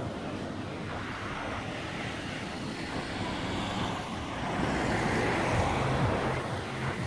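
Road traffic going by, a steady noise of cars, with one vehicle swelling louder as it passes about four to six seconds in.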